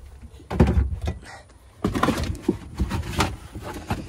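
Irregular knocks, clicks and clatter of car interior trim being pried loose and pulled out: a cluster of knocks about half a second in, a brief lull, then more knocks from about two seconds in.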